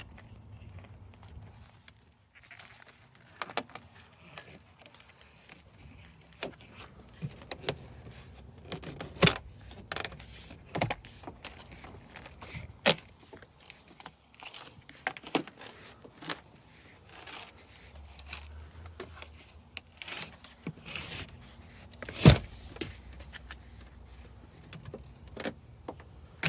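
Irregular clicks, taps and rustles of a BMW F10's rubber door seal being peeled and worked into place by hand, with a few sharper knocks.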